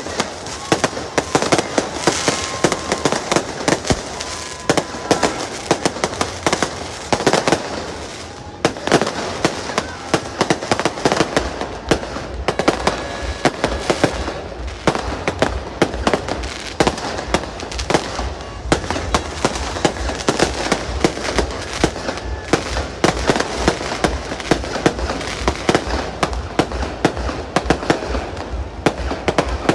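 Fireworks going off continuously: many sharp bangs and crackles overlapping with hardly a break. About twelve seconds in, a low rapid pulsing joins underneath.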